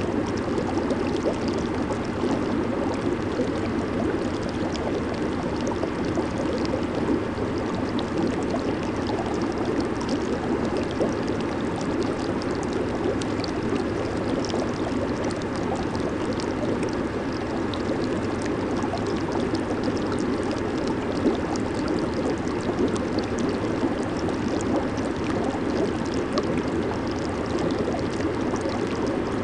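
Jacuzzi water churning and bubbling from its jets, a steady rushing with fine fizzing of bubbles on top.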